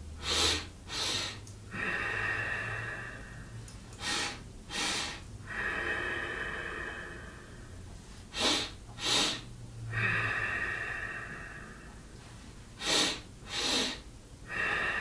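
A man breathing in the qigong Xi Xi Hu pattern: two quick, sharp inhales followed by one longer, steady exhale, repeated four times at an even pace.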